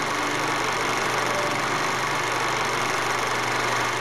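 A steady whirring hiss with a low hum, unchanging throughout.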